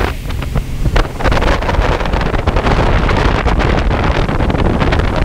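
Center-console boat running at speed across open water: heavy wind buffeting the microphone over the rush of water along the hull, with frequent short slaps and splashes.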